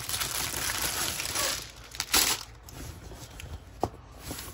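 Plastic packaging crinkling and rustling as it is handled, with a louder crinkle about two seconds in.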